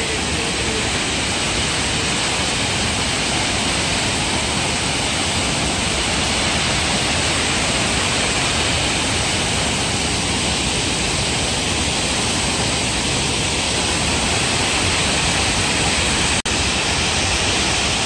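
Waterfall: a steady, loud rush of falling water. It cuts out for a split second once near the end.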